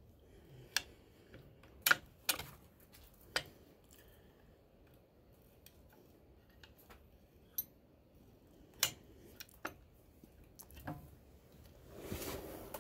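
Scattered light metal clicks and clinks of a wrench working a line fitting on a Ford 8N tractor's engine block, spaced irregularly a second or more apart, with a brief rustle of handling near the end.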